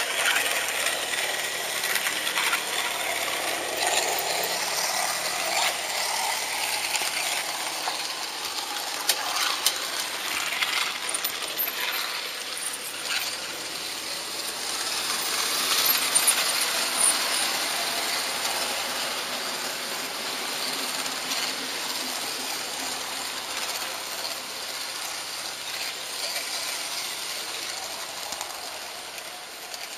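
HO scale model train running on metal track, heard from on board: a steady metallic rattle with many small clicks from the wheels on the rails.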